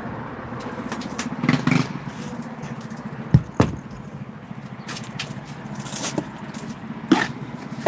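Masonry work: scattered short knocks and scrapes of tools working mortar and stone, with two sharper knocks about three and a half seconds in, over a steady low hum.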